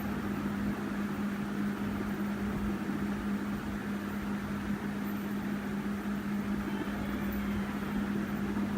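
Fidget spinner spinning on an iPad Pro's glass, a steady hum with a bearing whir.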